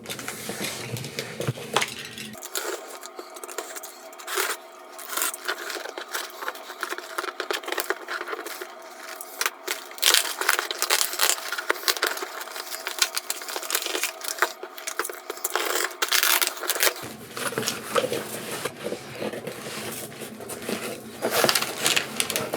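A shipping box being opened and unpacked by hand: packing paper and bubble wrap rustling and crinkling, with many small irregular clicks and knocks of handling.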